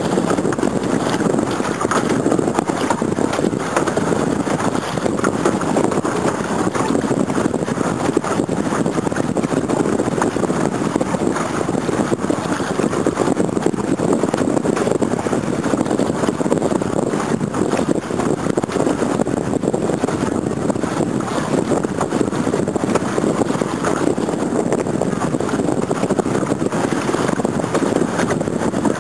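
Steady rushing noise of wind and choppy lake water, even throughout with no pitched engine tone.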